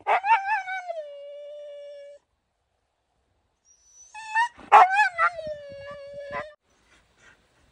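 Siberian husky howling twice. Each call opens with a few quick wavering yips, then settles into one long steady note. The second call starts about four seconds in.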